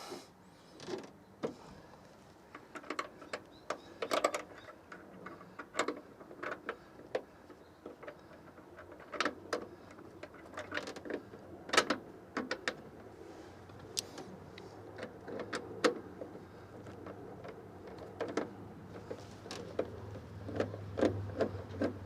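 Scattered light clicks and knocks at irregular intervals from hand work on a car door's door checker as it is lined up and its bolts are started; a faint low hum joins near the end.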